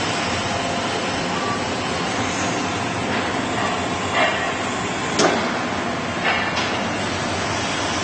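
1000mm automatic knife grinder running: a steady, even machine and grinding noise, with a few short, sharp sounds in the second half.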